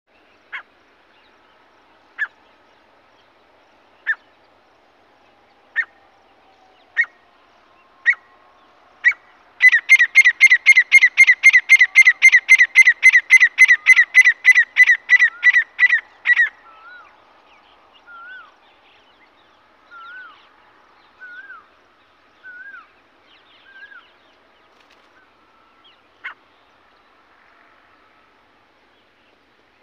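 Male grey francolin calling: sharp single notes that come faster and faster, then a loud, rapid run of about twenty repeated notes lasting some seven seconds. Fainter short upward-curling notes follow, and one more sharp note comes near the end.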